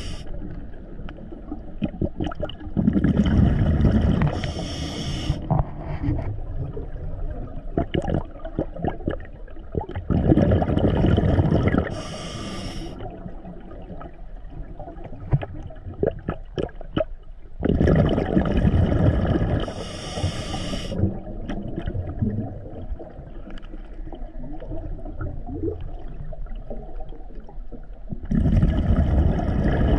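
Scuba diver breathing through a regulator underwater: four breaths about eight seconds apart, each a low rumble of exhaled bubbles followed by a short high hiss of inhalation, with faint bubble crackle and clicks between breaths.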